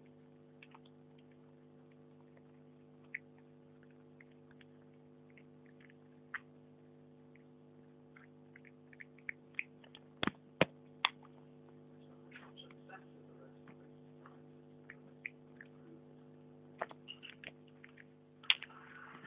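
Small dog chewing a piece of cucumber: scattered short crunching clicks, with a sharper cluster about halfway through and again near the end, over a steady electrical hum.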